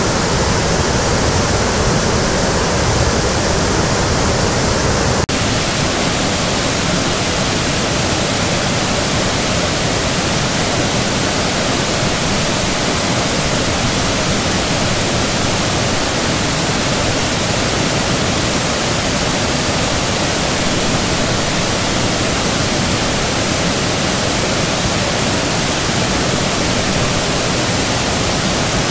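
Steady rush of water from a small rocky stream cascade close by. About five seconds in, the sound changes abruptly to a brighter, hissier rush.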